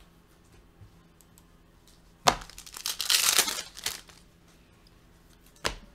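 Foil trading-card pack wrappers crinkling as a hand pushes through them, with a sharp snap a little after two seconds in and another near the end.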